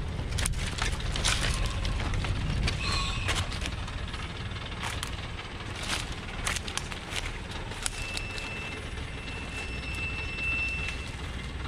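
Old Thaco Forland diesel truck, loaded with acacia logs, running with a low steady rumble as it creeps down a steep dirt slope, with scattered crackles of brush and twigs. A thin high whine joins in for a few seconds in the latter part.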